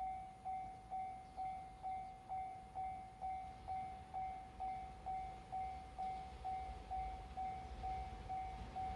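Japanese railway level crossing warning bell: an electronic ding at one steady pitch, repeating evenly about twice a second, which signals an approaching train. A low rumble builds near the end.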